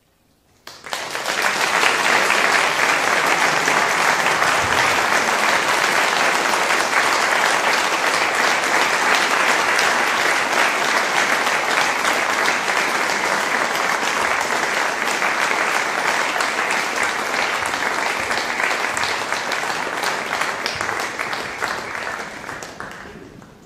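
Audience applauding: dense, steady clapping that breaks out suddenly about a second in and dies away near the end.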